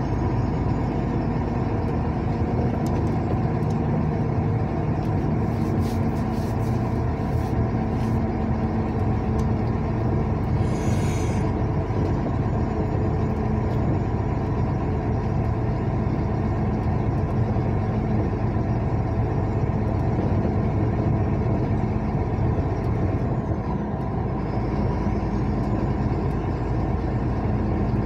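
Steady engine and tyre noise of a vehicle driving along a highway, a constant drone with a brief hiss about eleven seconds in.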